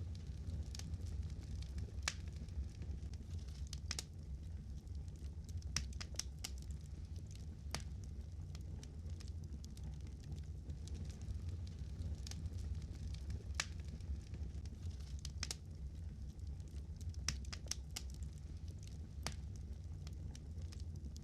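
Crackling fire: irregular sharp pops and snaps over a steady low rumble.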